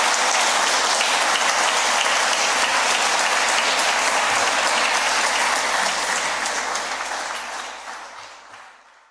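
Audience applauding steadily, the clapping fading out over the last two seconds.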